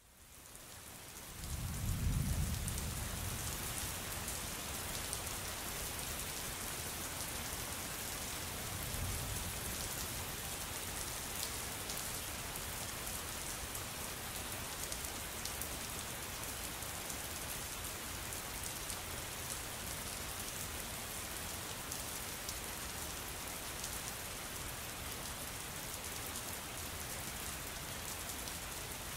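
Steady rain with fine pattering drops, fading in at the start, with two low rumbles: a strong one about two seconds in and a weaker one around nine seconds.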